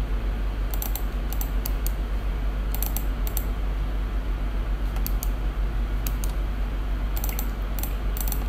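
Irregular clicking of a computer keyboard in use, the clicks coming singly and in small quick clusters, over a steady low hum and hiss.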